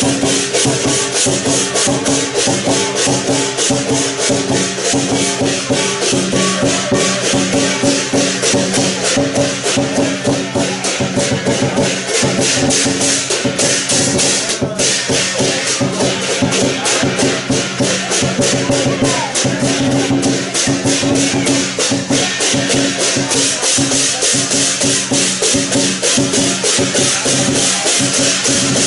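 Lion dance percussion: drum and clashing cymbals playing a loud, fast, steady beat without a break.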